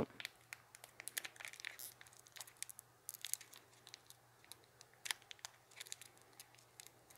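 Crinkling and crackling of a candy package being handled and pulled at to tear it open, in irregular short crackles.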